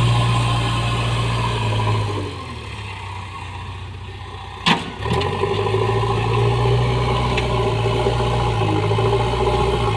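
JCB machine's diesel engine running steadily, easing off about two seconds in and coming back up louder about five seconds in, with a single sharp click just before it picks up.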